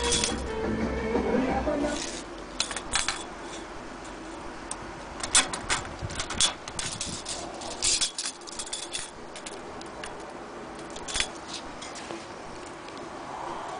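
Irregular clicks and light knocks of handling, as a steel tape measure and the wooden cabinet of an antique sewing machine are handled.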